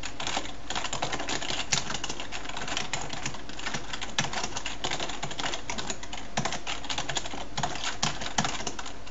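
Fast typing on a computer keyboard: a continuous run of quick key clicks, several a second.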